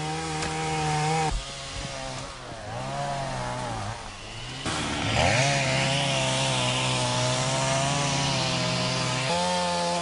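Small two-stroke engine of a hand-held forestry cutting tool running at high revs. Its pitch dips and climbs as the throttle is eased and opened again. From about five seconds in it is held steady under load, with a hissing cutting noise on top. The sound changes abruptly twice, as if cut between takes.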